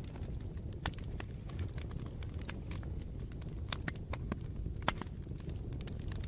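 Campfire crackling: irregular sharp pops and snaps over a steady low rumble, with one louder pop about five seconds in.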